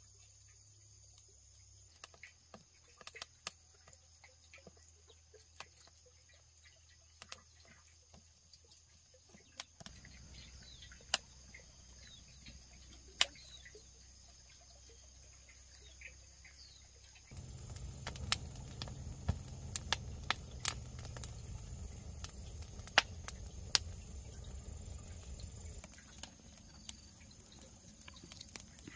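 Insects trilling steadily in a high band, with scattered sharp clicks and knocks. A low rumbling noise comes in about two-thirds of the way through and drops away near the end.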